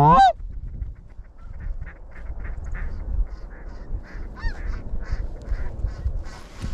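One loud, close goose honk that breaks sharply upward in pitch right at the start, then a flock of geese calling in short, repeated honks, about two a second, over a steady low wind rumble.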